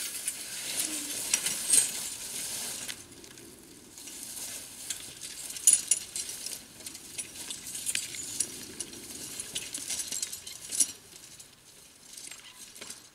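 Dry leaves and brush crackling and rustling close to the microphone, with scattered sharp clicks, the loudest about two, six and eleven seconds in.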